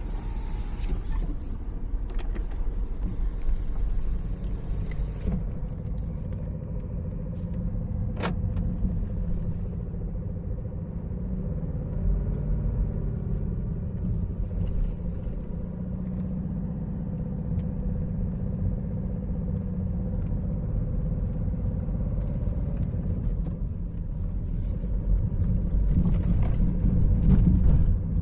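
BMW 318d's M47TU2 four-cylinder diesel engine running with a knock, getting louder for a few seconds near the end. The owner traced the knock to a bent or cracked crankshaft that lets the flywheel slide back and strike the transmission input shaft.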